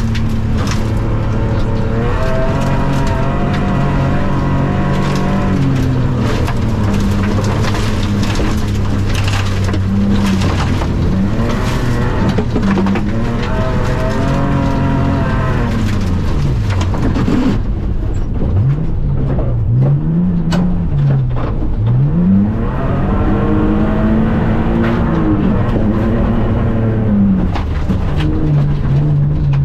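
BMW E46 rally car engine heard from inside the cabin at full stage pace, revving up and dropping back repeatedly through gear changes and lifts for corners. Frequent short clicks and knocks of gravel and water thrown against the car run alongside it.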